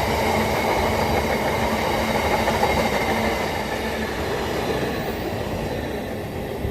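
A train passing at speed: a steady rush of wheels on rail with a few steady tones running through it, easing off slightly over the last couple of seconds.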